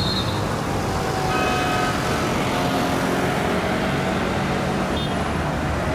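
Steady city traffic noise, a continuous din of passing vehicles, with a faint brief tone about a second and a half in.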